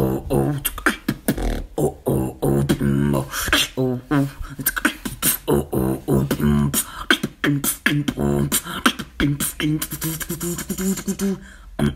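One person beatboxing: a fast, continuous run of mouth-made clicks and percussive hits over a hummed low tone.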